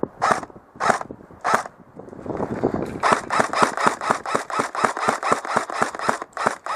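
Airsoft electric rifle, a JG G36C, firing: four single shots within the first second and a half, then a rapid even string of about six or seven shots a second from about three seconds in.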